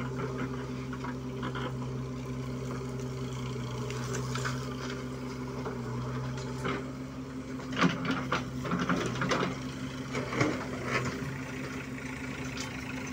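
JCB 3DX backhoe loader's diesel engine running steadily while the backhoe arm digs and swings. From about eight to eleven seconds in there is a spell of knocks and clatter as a bucketful of soil and stones drops into a steel tractor trolley.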